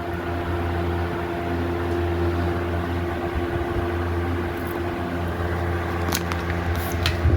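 Lakewood Model 200 box fan running on high speed: a steady motor hum with the whoosh of air pushed by its plastic blades. A few sharp clicks and a knock near the end.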